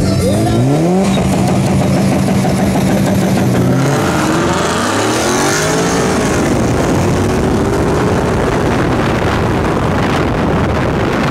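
Car engines at full throttle in a street-race launch, loud throughout, their pitch climbing, dropping at a gear change about four seconds in, then climbing again.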